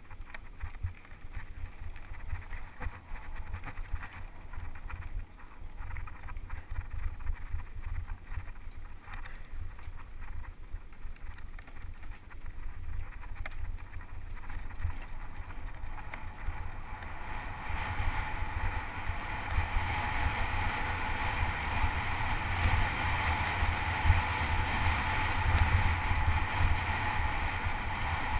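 Mountain bike ridden along a rough dirt track: wind buffets the GoPro's microphone in a constant low rumble, and the bike rattles and knocks over the bumps. A little past halfway a broad rushing hiss of tyres and air swells up and stays louder as the bike picks up speed.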